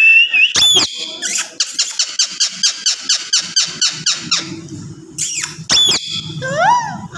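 Pet parrot calling: a held whistle, then a sharp shriek, then a fast run of chirps at about five a second for nearly three seconds, another shriek, and a rising-and-falling whistle near the end.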